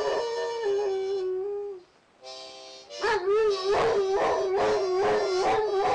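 Dog howling with its head raised: a long held note that breaks off a little under two seconds in, then comes back louder about three seconds in as a howl wavering up and down in pitch.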